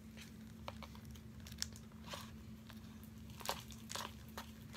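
Clear glue slime being worked with activator in a plastic container: a run of small, irregular sticky crackles and clicks, over a faint steady hum.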